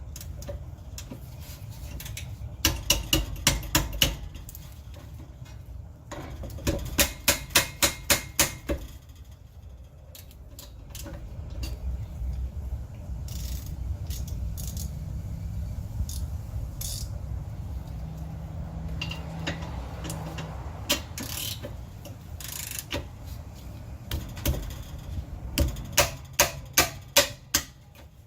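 Ratchet wrench clicking in three quick runs of sharp metallic clicks, a few seconds each, as the 14 mm caliper bolts on a rear brake are worked loose, with a low steady rumble between the runs.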